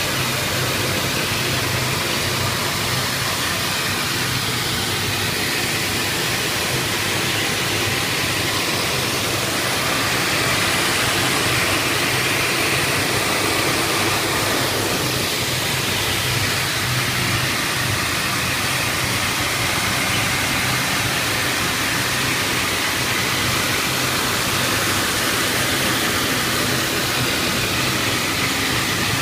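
Tile and grout cleaning machine running steadily: a constant hiss over a low hum.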